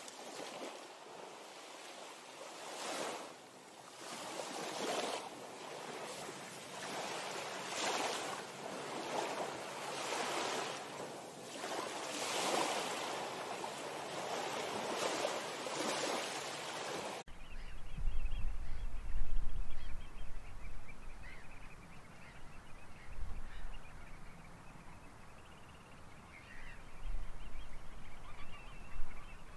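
Small waves of shallow sea water washing, about one wash a second. About seventeen seconds in the sound cuts to wind buffeting the microphone, a low rumble that comes and goes in gusts.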